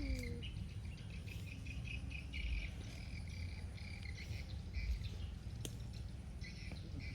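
High-pitched insect chirping, short pulses repeating in clusters, over a steady low rumble, with one sharp click near the end.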